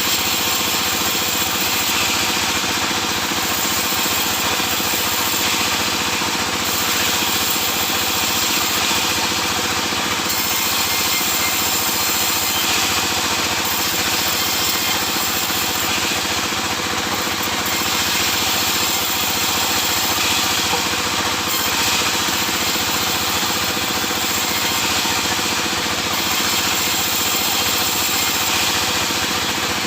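Sawmill saw machinery running steadily, a loud, even mechanical noise with no breaks.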